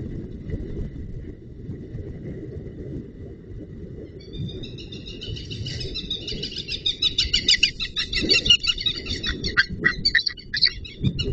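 White-tailed eagle calling: a long series of rapid, high yelping notes that starts about four seconds in and grows louder, over a low rumble.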